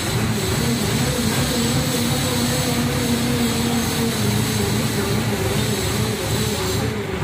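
Hydra crane's diesel engine running steadily under load with the boom raised, a continuous drone that wavers slightly in pitch.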